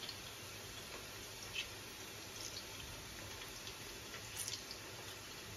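Half a lemon squeezed by hand over a bowl of chicken and curd: a few faint drips and soft ticks of juice falling, over a steady low hiss.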